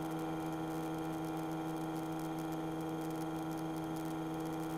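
Steady hum of a single-engine light training aircraft's engine and propeller at full power in the climb after takeoff, heard muffled inside the cockpit.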